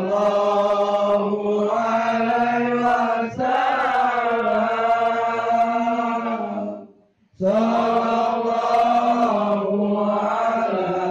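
Voices chanting a shalawat in long, drawn-out held phrases: one long phrase, a brief break about seven seconds in, then a second phrase.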